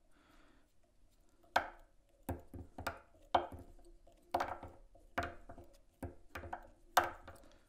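Handling sounds at a fly-tying vise: sharp taps and ticks, about two a second, as thread is wrapped to tie in peacock herl on a hook. They start about a second and a half in.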